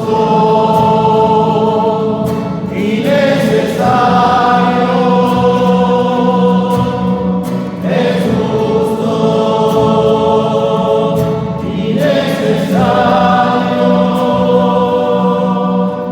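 A choir singing a sung liturgical refrain in long held phrases, a new phrase starting about every four seconds over a steady low note.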